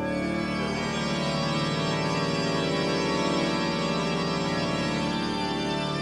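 Organ music playing sustained, held chords.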